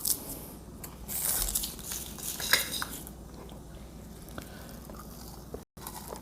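Close-miked eating sounds: biting and chewing, with a couple of louder bursts about one and two and a half seconds in.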